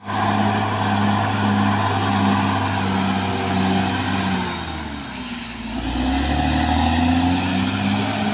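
Caterpillar D6R XL bulldozer's diesel engine running hard. The engine note sags and drops in level about halfway through, then picks back up.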